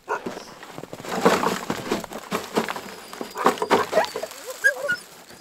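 Water and frozen bait fish splashing as they are poured from a plastic box into a bucket, with sled dogs giving a few brief whines near the end.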